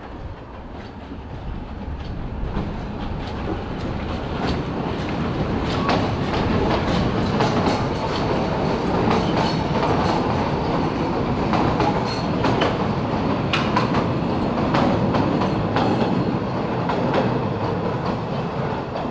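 A 2 ft narrow-gauge train passing at close range: the rumble of the coaches on the track, with irregular clicks of wheels over rail joints. The noise swells over the first few seconds and fades away near the end.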